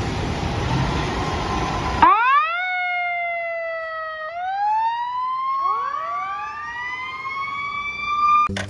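A steady rushing hiss for about two seconds, then a fire-engine siren wail. Its pitch sweeps up, slides slowly down, then climbs again with a second overlapping wail, and it cuts off just before the end.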